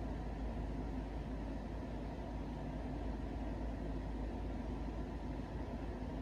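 Steady low background hum and hiss with no distinct events.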